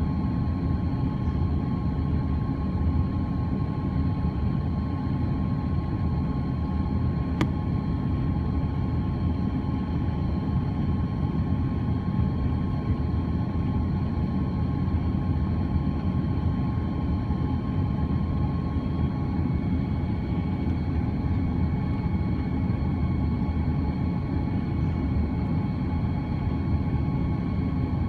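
Steady cabin noise inside an Airbus A330-300: a constant low rumble of engines and airflow with a few faint steady tones over it. A single sharp click about seven seconds in.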